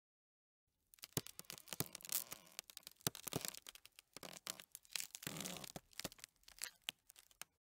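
Ice creaking and cracking: a dense run of sharp crackles and snaps that starts about a second in and stops shortly before the end.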